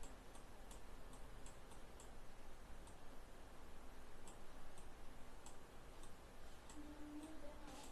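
Computer mouse's left button clicking as it is pressed and released for each stroke of hand-drawn letters. About a dozen faint, irregularly spaced clicks, the loudest near the end.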